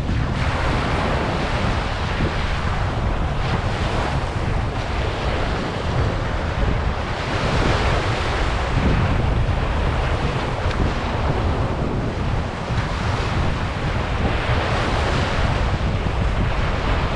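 Ocean waves breaking and washing onto a beach, a continuous surf that swells and eases every few seconds. Wind buffets the microphone with a steady low rumble underneath.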